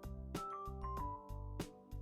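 Light, bouncy background music with bell-like melody notes over a steady bass.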